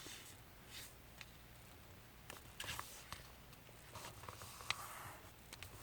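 Sheet of paper being handled, folded and pressed into a crease: faint, scattered rustles and small crinkling clicks.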